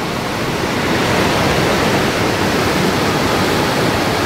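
River rapids rushing over large boulders: a steady noise of white water that grows a little louder about a second in.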